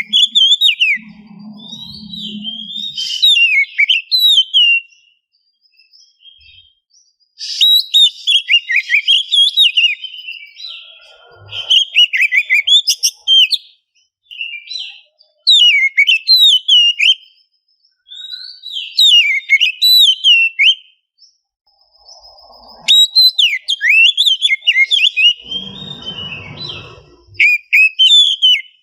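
Oriental magpie-robin singing in repeated phrases of fast, varied whistled notes, with pauses of one to two seconds between phrases. A low rumbling noise comes in under the song for about two seconds near the end.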